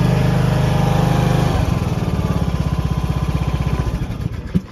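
The Stiga Park 520 P ride-on mower's single-cylinder Briggs & Stratton petrol engine runs steadily, then drops in speed about a second and a half in. Its firing slows into separate beats and stops near the end, with a single knock as it stops.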